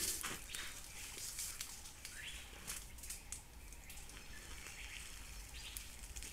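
Dry leaf litter crackling in sharp snaps under the feet of an Asian elephant shifting its weight, mostly in the first three seconds. A few short rising bird chirps come in between.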